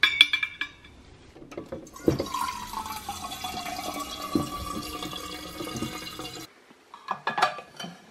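Water running from a fridge water-dispenser jug's spigot into a stainless steel Hydro Flask bottle for about four seconds, then cutting off suddenly. A few clinks at the start and a few clicks near the end come from the bottle and its lid being handled.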